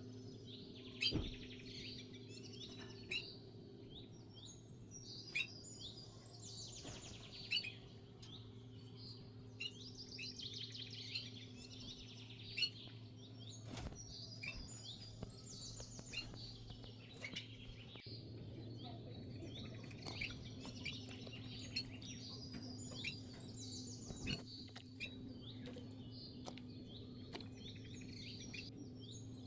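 Small birds chirping and twittering in quick bursts throughout, over a steady low hum, with a few sharp clicks.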